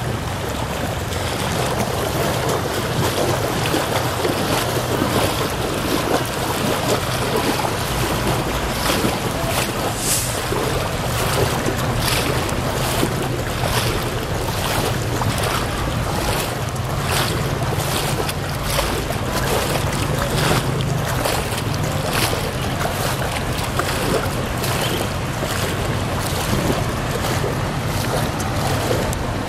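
Engine running steadily while moving through floodwater, with rushing, splashing water and wind buffeting the microphone.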